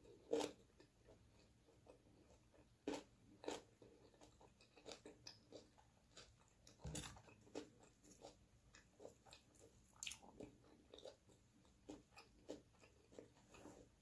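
A person chewing food close to the microphone, with crunches and sharp, irregular clicks and crackles; the loudest come about half a second in, around three seconds and around seven seconds.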